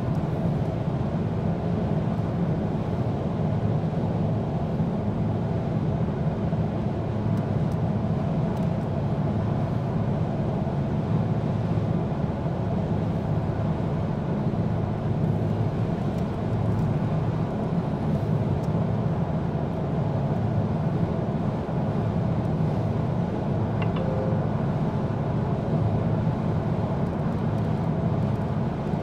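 A car cruising at motorway speed, heard from inside the cabin: a steady low rumble of engine and road noise that holds even throughout.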